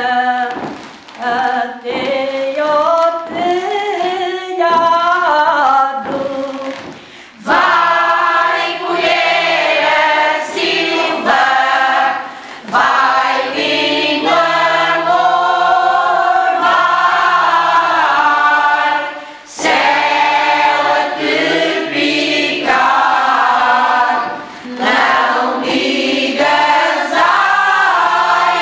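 Women's choir singing cante alentejano, unaccompanied. A single voice sings alone for the first six seconds or so, then after a short breath the full choir comes in together.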